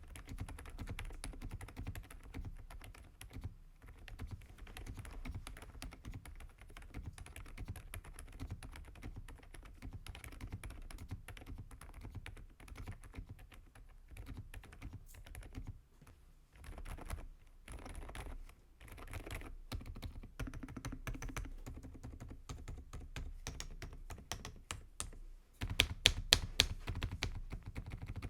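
AULA F99 mechanical keyboard with AKKO Fairy Silent switches being typed on quickly and continuously: soft, damped keystrokes with short pauses, and a few much louder, sharper key strikes near the end.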